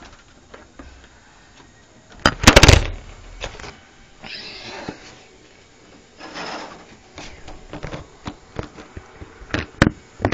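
Handling noise from the recording phone as it is moved and covered: a loud knock and rub about two seconds in, two stretches of scraping rustle, then a series of sharp clicks and taps near the end.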